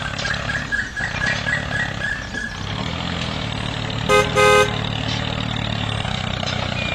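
A tractor engine runs with a steady low drone, with a rapid high-pitched pulsing tone over the first couple of seconds. About four seconds in, the horn sounds two short toots.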